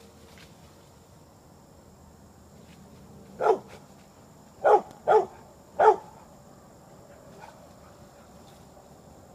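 English springer spaniel barking four times, one bark and then three in quick succession about a second later, alerting at vultures in the trees.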